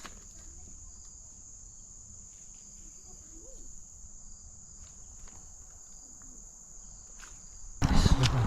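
Insects chirring in a steady high-pitched drone, with a few faint clicks. Near the end a loud rustling noise starts suddenly and covers it.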